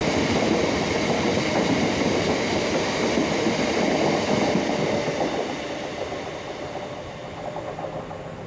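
Freight train of red box wagons passing at speed, its wheels rumbling along the rails. The noise fades away about five to seven seconds in as the last wagons go by.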